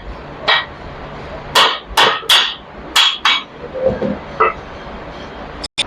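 Sharp metal-on-metal hammer blows on a Royal Enfield Bullet 500 crankshaft assembly, about seven strikes at an irregular pace, each ringing briefly. This is the crank being trued (straightened) by striking it.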